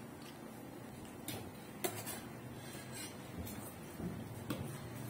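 Spoons and forks clinking and scraping against plates while eating, several short light clicks scattered through, over faint room noise.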